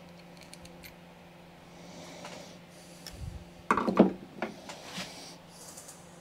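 Small metal clicks and handling noise of a carburetor and screwdriver being worked by hand on a workbench, with a loud clatter about four seconds in and a few lighter clinks after. A steady low hum runs underneath.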